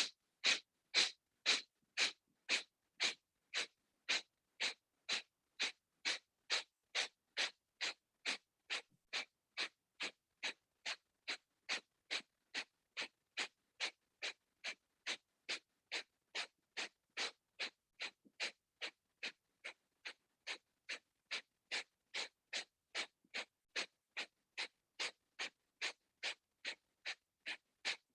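Rapid, forceful breaths through the nose in a fast-paced pranayama round: short, sharp, even puffs at about two a second, kept up steadily.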